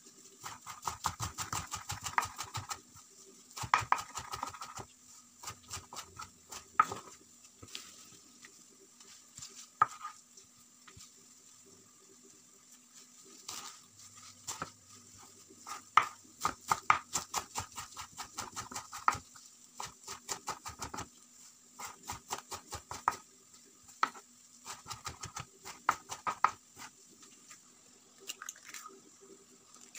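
Kitchen knife chopping a heap of fresh leafy greens (nettle, sorrel and goutweed) on a wooden cutting board: runs of quick knocks, about four or five a second, broken by short pauses.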